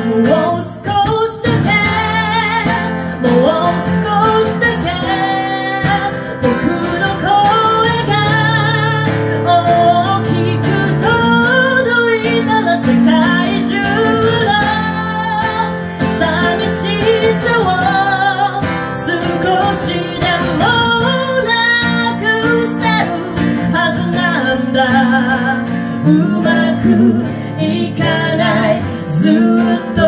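A woman singing a song into a microphone, accompanied by an acoustic guitar, live through the venue's sound system.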